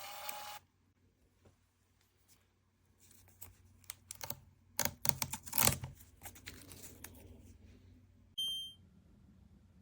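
Handling noise: a cluster of light clicks and rustles over a few seconds, then one short, high electronic beep near the end.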